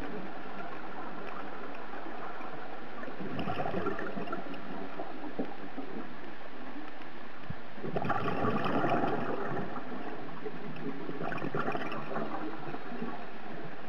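Underwater, a scuba regulator's exhaled bubbles gurgle out in three bursts a few seconds apart, over a steady rushing background.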